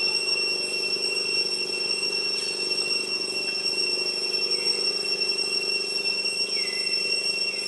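Steady high-pitched drone of forest insects, with a lower steady hum beneath it and a few short falling chirps about two and a half, four and a half and six and a half seconds in.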